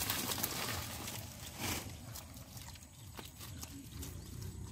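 Water hyacinth stems and leaves rustling and tearing as they are pulled up by hand from mud, loudest over the first two seconds, followed by a few sharp clicks.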